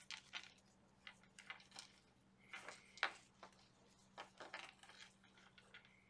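Near silence with faint rustles and light clicks from hands tying seam-binding ribbon into bows on a fabric cover, scattered irregularly, over a low steady hum.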